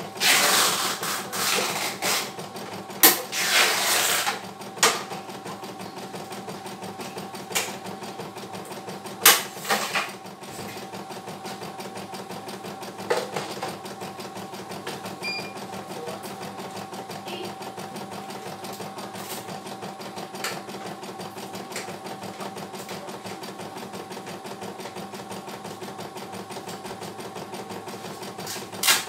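CNY E900 computerised embroidery machine running an embroidery design: a steady, fast needle-and-hoop machine sound. Several louder bursts of noise come in the first four seconds, with a few short knocks later on.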